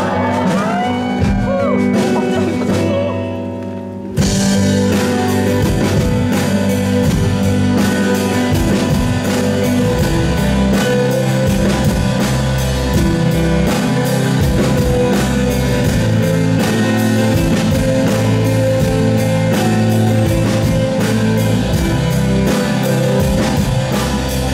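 Live rock band music from electric bass and acoustic guitar. A quieter opening gives way to the full band with drums about four seconds in, followed by a steady beat.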